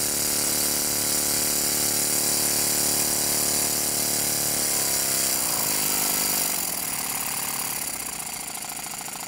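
Stuart No. 10V single-cylinder vertical model steam engine running steadily on live steam, then slowing from about halfway as its beat falls in pitch and grows quieter. The gas to the boiler's ceramic burner is off, and the engine is running out of steam.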